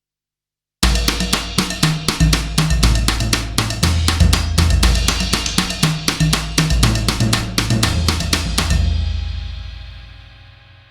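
Sampled acoustic rock drum kit from the EZdrummer 3 Alt-Rock EZX library playing a groove, with hits about four a second and low notes changing pitch underneath. It starts abruptly about a second in and stops near the end, leaving a ringing fade.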